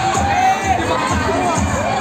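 Large crowd cheering and shrieking over loud dance music with a steady bass beat about twice a second.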